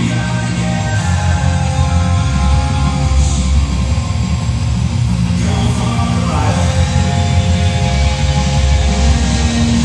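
Loud rock music with electric guitar over a heavy, steady bass.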